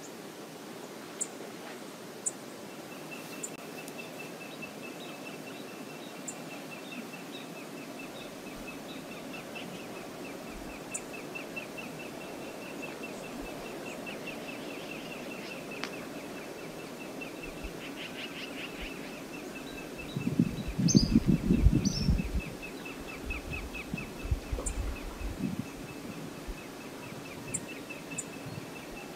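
Outdoor river ambience with a fast, steady high trill running through most of it and a few brief chirps. About two-thirds through comes the loudest sound, a burst of low sloshing and thudding with a few smaller ones after it, as a brown bear wades and climbs through shallow water among driftwood logs.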